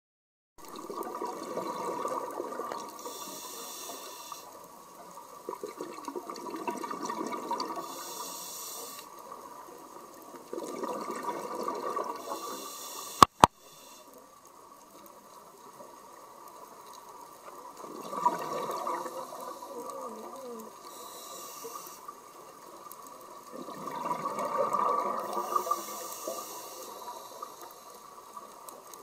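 Scuba diver breathing through a regulator underwater, breath after breath. A hiss on each inhale alternates with a rush of exhaled bubbles. Two sharp clicks come about halfway through.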